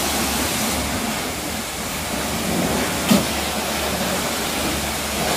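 High-pressure washer lances spraying water onto a car's bodywork: a loud, steady hiss over a low hum, with a short knock about three seconds in.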